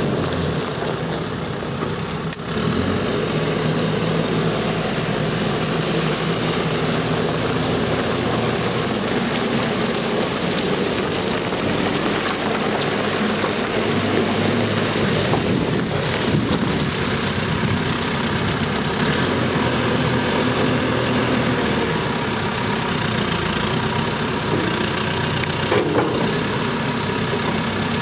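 Diesel engine of a 2002 Fermec 860 backhoe loader running steadily as the machine drives and manoeuvres, its note dipping and then picking up about two seconds in. Near the end it is working the front loader arms to lift the bucket high.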